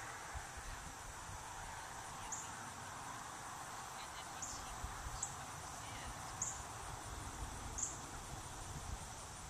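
Outdoor ambience: a steady hiss and a low uneven rumble of wind on the microphone, with short high chirps every second or two.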